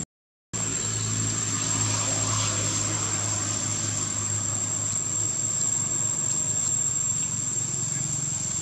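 Outdoor ambience after half a second of silence: a steady high insect drone over a low, even hum like distant engines.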